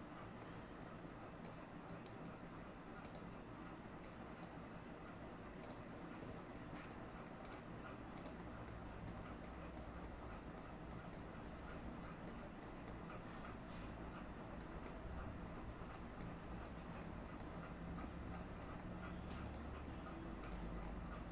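Faint computer mouse clicks, irregular and at times several a second, over a low steady hum.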